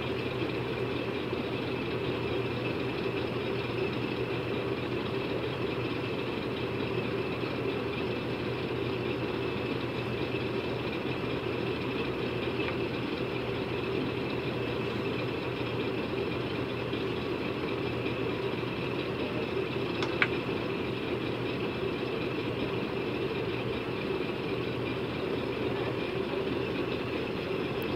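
A steady mechanical hum that holds unchanged throughout, with one short click about twenty seconds in.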